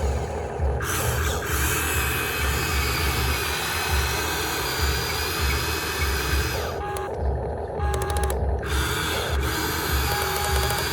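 Electric motors and gearboxes of a Huina 1592 radio-controlled model excavator running steadily with a drill-like whine while it digs soil, over a low throb. Short steady tones come in near the end.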